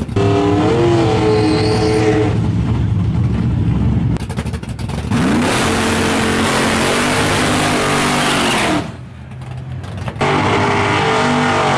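Chevrolet 454 SS drag truck doing a burnout: the V8 is held at high revs while the rear tires spin and hiss. It runs in three long pulls, dropping off briefly between them.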